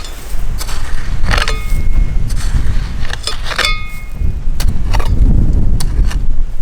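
A metal rake scraping and knocking through concrete rubble and rock, with irregular clanks, twice ringing briefly like struck metal. A steady low rumble runs underneath.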